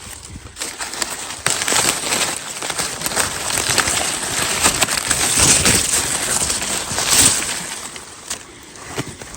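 Dry maize plants being handled in a field: a dense, uneven rustling and crackling of dry leaves, husks and stalks as ears are picked by hand, with many small snaps.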